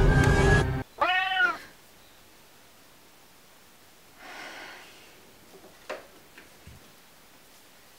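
Scary film music cuts off abruptly, then a cat meows once: a short call that rises and falls in pitch. A faint breathy rush and a light click follow.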